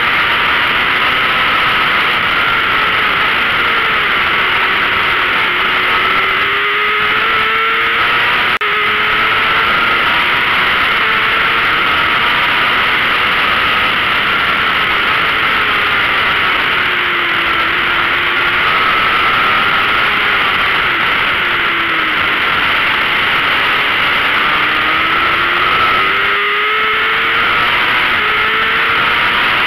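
600cc sport bike engine at racing speed, its pitch rising and falling again and again as the rider works through the gears and slows for corners, over a steady rush of noise. A single sharp click about eight seconds in.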